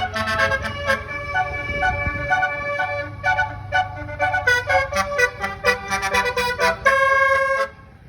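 Bus basuri musical horn (telolet) playing a quick tune of short notes over the bus engine's low rumble, ending on a long held note that cuts off suddenly near the end.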